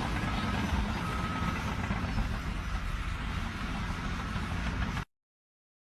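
A vehicle's engine running steadily amid outdoor noise, cutting off abruptly about five seconds in to dead silence.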